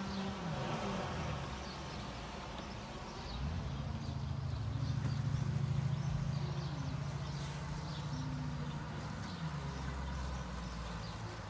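Husqvarna Automower robotic lawn mower cutting grass: a low, steady hum comes in about three seconds in and eases off near the end, very quiet for a mower.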